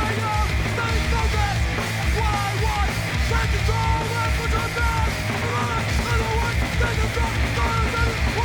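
Hardcore punk song played from a 7-inch vinyl record, with fast, steady drumming under loud, dense guitars.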